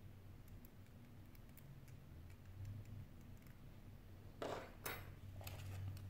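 Light clicks and clatter of metal tweezers and smartphone display parts being handled on a work mat, with two louder short knocks about four and a half seconds in, over a faint steady low hum.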